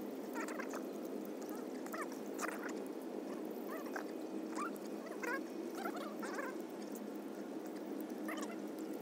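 A string of about nine short, high animal calls, spaced irregularly, over a steady low background noise.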